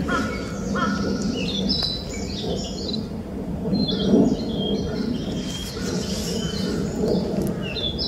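Young male narcissus flycatcher singing a rather restrained song: short whistled phrases of stepped high notes, with a lower paired note repeated a few times near the start. A steady low hum of background noise underneath.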